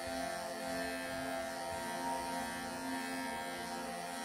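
Cordless electric pet clippers running with a steady buzzing hum as they shave through a dense mat of fur on a Persian cat.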